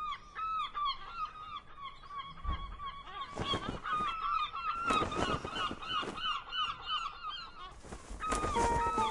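A flock of birds calling over and over in short, closely spaced calls, with a few brief rushes of noise in between.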